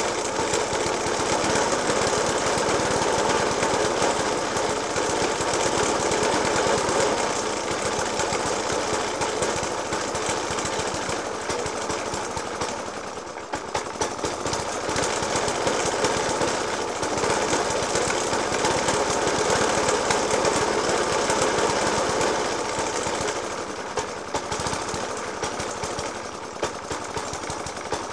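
The petrol engine of a Suffolk Punch 30S cylinder lawnmower idling roughly with heavy, repeated banging. The banging persists after a new spark plug, a decoke and a carburettor clean. Its level dips briefly about halfway through and again near the end.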